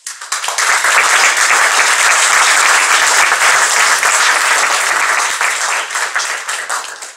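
An audience of about fifty people applauding: the clapping starts at once, holds steady, and thins out and fades near the end.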